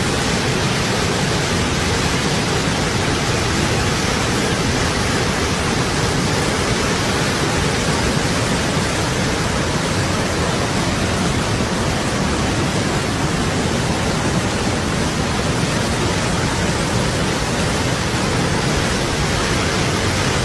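Flash-flood torrent and heavy rain making a loud, steady, unbroken rushing noise.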